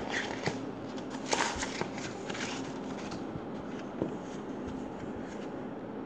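Pages of a paperback picture book being turned and handled, with paper rustling and a few light clicks in the first couple of seconds, then softer rustling.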